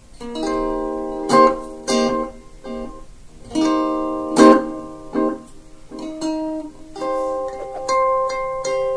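Flight Pathfinder electric ukulele with steel strings, played through a small NUX Mighty 8BT amplifier: chords strummed about once a second, each left to ring.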